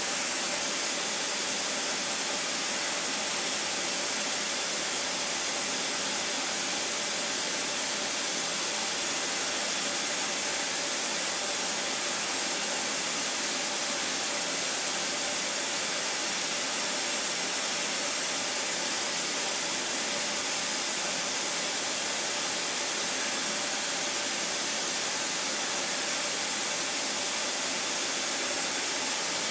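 CNC machining centre milling tough-pitch copper with a small ball-nose carbide end mill, spindle at 16,800 rpm: a steady, even hiss that doesn't change.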